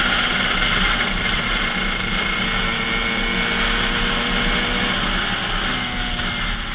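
KTM 85 SX's small two-stroke single-cylinder engine running at high revs under way, under heavy wind noise on a helmet-mounted camera. The hiss eases about five seconds in.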